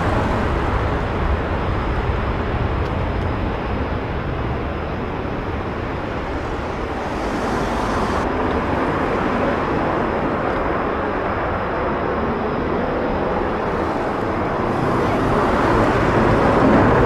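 Turkish F-16 fighter jet's engine at take-off power, a continuous roar as it takes off and climbs away, growing louder near the end.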